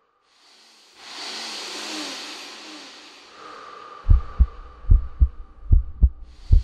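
Electronic soundtrack: a rushing whoosh swells about a second in and fades away, then from about four seconds deep thumps come in pairs, like a heartbeat.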